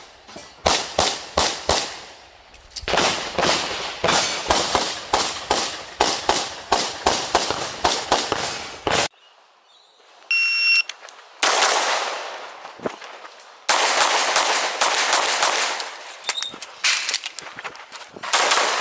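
Handgun fired in quick strings of many shots, as in a practical-pistol stage. About ten seconds in there is a short break, then a short electronic beep like a shot timer's start signal, and the shooting resumes in fast strings.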